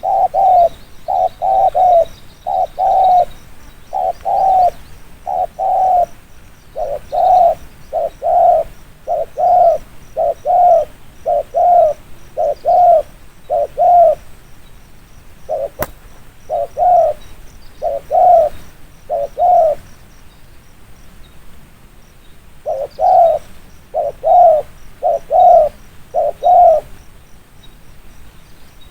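Spotted dove giving its quick 'gù' coo: short coos, about two a second, in runs broken by two pauses.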